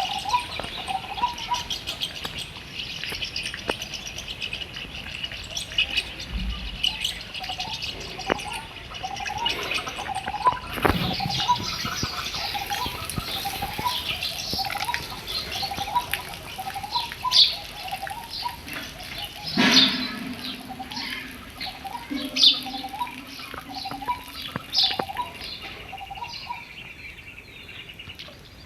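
Several birds chirping and singing together: busy high chirps and trills over a lower call repeated about once a second.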